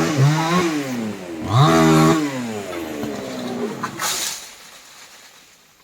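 Chainsaw engine revving, its pitch rising and falling twice, then slowing and fading away near the end.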